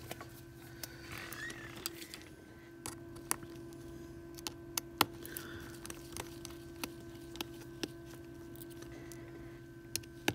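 Light, irregular clicks and taps of a precision screwdriver on the tiny screws and metal brackets inside an iPhone 7 as it is taken apart, the loudest about halfway through. A steady low hum runs underneath.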